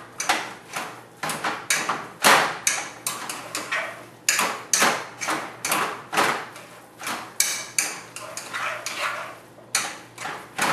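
Boiled yams and sweet potatoes being mashed in a cooking pot: a mashing utensil knocks and scrapes against the pot two to three times a second.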